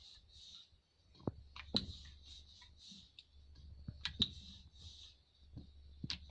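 Wooden rolling pin rolling out roti dough on a wooden rolling board (chakla), with a few sharp wooden clicks and knocks coming in pairs about every two seconds over a faint steady hiss.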